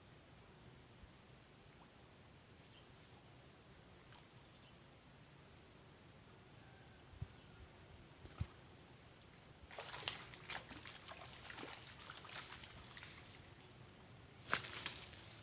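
A steady, high-pitched insect drone, faint but unbroken. About ten seconds in and again near the end come short bursts of clicking and rustling.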